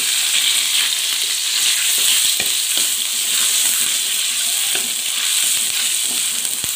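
Ready-made red spice paste sizzling in hot oil in a wok while a metal spatula stirs and scrapes it around the pan, with a few light knocks of the spatula against the wok.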